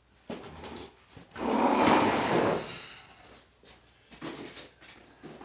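Plastic keyboard case being handled and pried at: a scraping rub lasting about a second, followed by a few light knocks and clicks.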